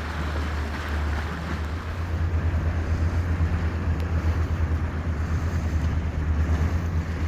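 Shanty boat's motor running steadily underway at cruising speed, a low drone, with a rushing of wind on the microphone.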